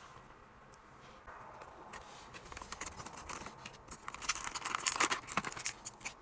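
A Disney Doorables blind pack being opened by hand: the cardboard box and its plastic inner packaging crackle and crinkle in a run of sharp clicks that gets louder just past the middle.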